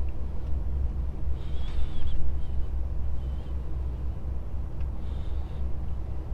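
DAF XF truck cab while driving: a steady low engine and road rumble, with a few brief high-pitched squeaks on top.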